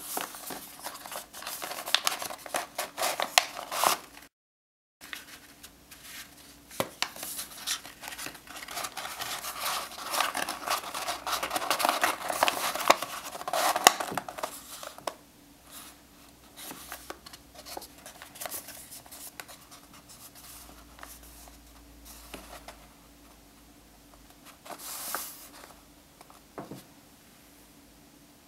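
Folded paper origami box rustling and crinkling as fingers press along its creases, with many small scratchy clicks. The sound cuts out briefly about four seconds in, is busiest up to about fifteen seconds, then thins to faint occasional rustles with one short rustle near the end.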